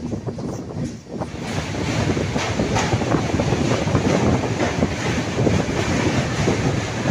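Passenger train running on the rails, heard from aboard a coach: a steady rumble with a fine clatter of the wheels. About a second in it dips, then grows louder and hissier.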